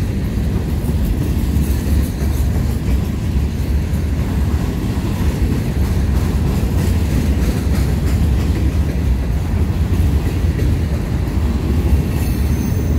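Freight train cars, open hoppers and boxcars, rolling past close by: a steady, deep rumble of steel wheels on rail.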